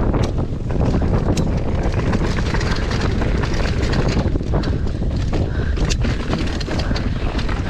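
Mountain bike descending a dirt trail at speed: wind rushing over the microphone, with many short clicks and knocks from the bike over the rough ground.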